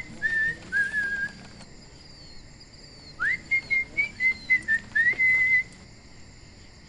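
A person whistling a short tune in two phrases, the notes sliding up into pitch at the start of each phrase, with a pause of a second or two between them.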